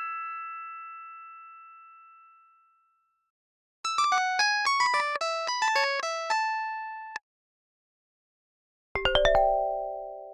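Short ringtone-style jingles played on a tuned instrument. The ring of earlier notes fades out, then after a gap a quick melody of about seventeen struck notes runs for some three seconds and cuts off abruptly. After another gap, a fast rising run of about six notes rings on and fades.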